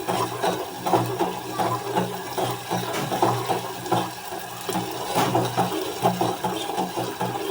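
Ground tomato-onion paste frying in hot oil in a pan, sizzling and bubbling while it is stirred.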